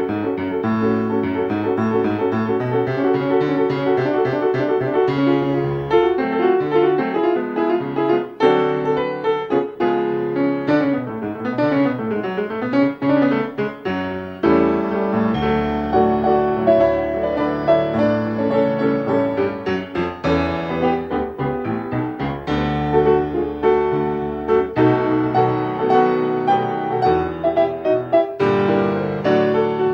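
Background piano music with many quick notes, played without a break.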